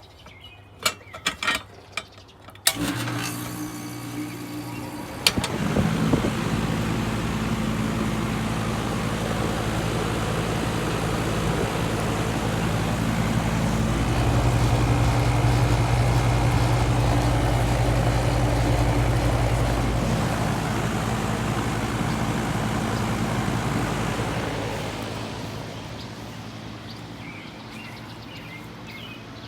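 Goodman GSX13 air conditioner outdoor unit starting up: a few clicks, then a hum with steady tones begins about three seconds in. About five seconds in, a louder running noise joins, grows strongest near the middle, and dies down over the last few seconds.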